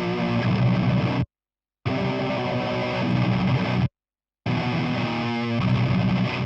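High-gain distorted electric guitar rhythm playing, a DI track reamped through the Brainworx Diezel VH4 amp-sim plugin on its very high-gain channel 4. It plays in chunks about two seconds long that cut off abruptly into half-second silences, twice.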